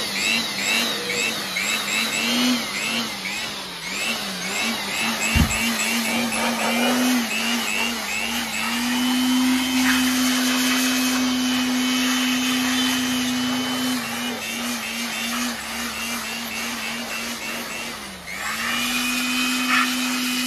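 Handheld electric air blower running, blowing dust out of an electrical panel: a steady rush of air under a motor whine. The whine wavers in pitch for the first several seconds, then holds steady, with a brief dip in speed near the end.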